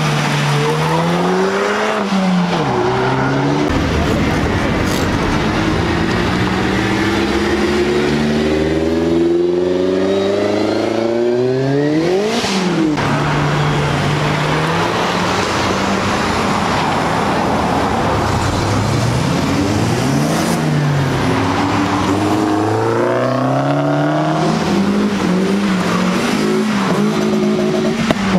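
Several cars' engines revving and accelerating as they pull away one after another, the engine note repeatedly climbing and dropping back, with one sharp high rev about halfway through.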